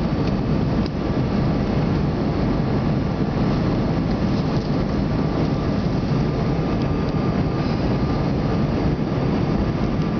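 Steady engine and airflow noise heard inside an airliner's cabin during the descent to land, with a faint high steady tone over it.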